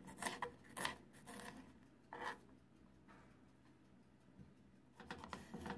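Kitchen knife chopping green chillies against a plastic cutting board: a few separate cuts, a quiet stretch, then a quick run of cuts near the end.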